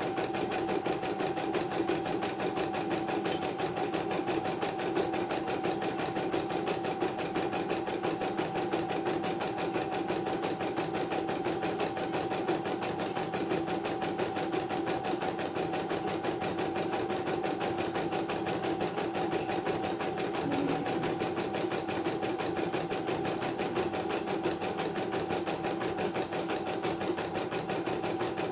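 CNY portable computerized embroidery machine stitching a design: rapid, even needle strokes over a steady motor hum, running without a break.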